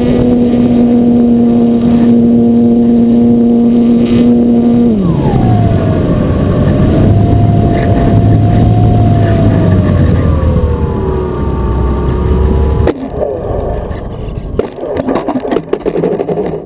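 Electric motor and propeller of an E-flite Apprentice 15e RC airplane heard from on board, over a rush of wind. Its pitch is steady for about five seconds, then drops as the throttle comes back and wavers up and down. About thirteen seconds in, the sound turns choppy and uneven.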